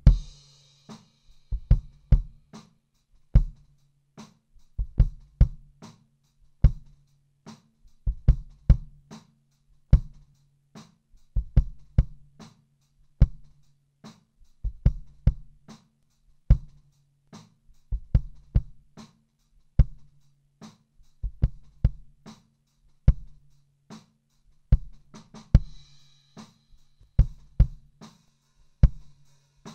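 Recorded kick drum track playing back: deep, punchy hits in an uneven groove of one to three a second, each with a sharp beater click, over a low ring that holds between the hits.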